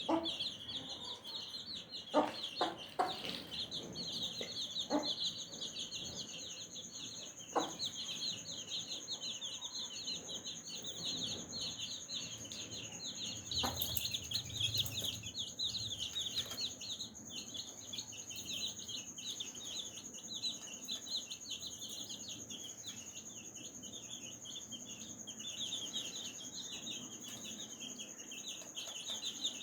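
A brood of baby chicks peeping continuously in a dense chorus of short high chirps, with a few short low clucks from the mother hen in the first several seconds. A steady thin high whine runs underneath from about four seconds in.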